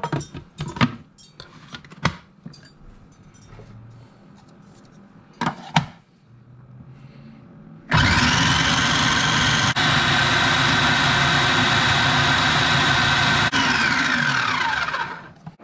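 A few knocks and clicks, then about eight seconds in a food processor's motor starts abruptly and runs steadily, blending a thick beetroot, yogurt and tahini dip. Near the end it switches off and spins down with a falling whine.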